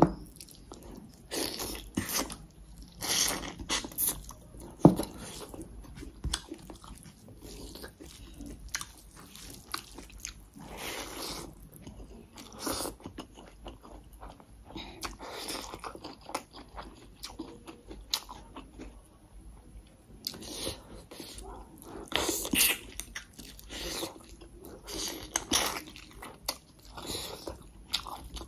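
A person eating rice and chicken curry by hand, close to the microphone: chewing, biting and wet mouth sounds in irregular bursts, with a sharp click about five seconds in.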